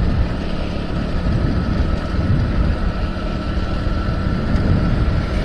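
Motorcycle running steadily at cruising speed on a paved road, with wind noise on the microphone and a faint steady whine above the engine rumble.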